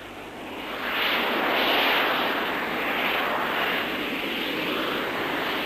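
Jet noise from a Hawker Siddeley Harrier's Pegasus turbofan, a steady rushing sound that swells about a second in and then holds.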